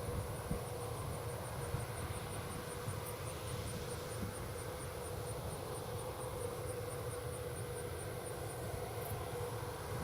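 Tractor engine running steadily with a low rumble and an even hum, under a high, thin insect chirp repeating about four times a second that stops near the end.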